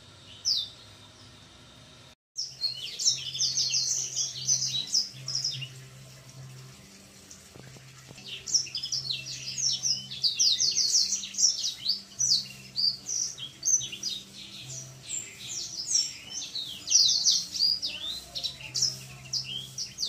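Young black-throat × sanger hybrid finch, about three months old, twittering in fast runs of high chirpy notes: immature practice song (sub-song) as it learns to sing. The phrases pause briefly about a third of the way in, then run on almost without a break.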